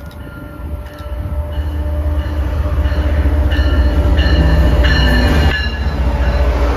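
MBTA commuter rail train led by HSP46 diesel locomotive No. 2029 approaching and passing close, its low rumble building to its loudest as the locomotive goes by. High-pitched steady tones ring over the rumble from about a second and a half in and cut off suddenly at about five and a half seconds.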